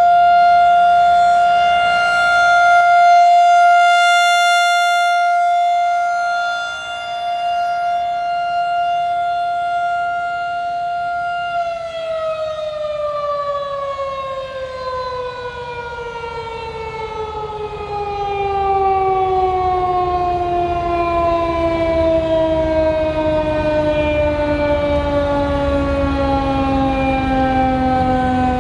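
Federal Signal 2001-DC outdoor warning siren sounding its steady alert tone, loud, swelling and fading slowly as it rotates. About a third of the way in the tone begins a long, smooth fall in pitch as the siren winds down at the end of the three-minute alert.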